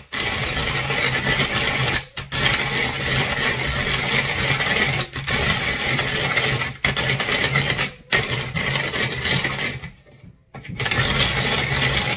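Coffee beans being ground in a hand-cranked Tupperware rotary grater with a coarse cone: a steady grinding rattle as the handle turns, stopping briefly a few times and pausing for about half a second near the end.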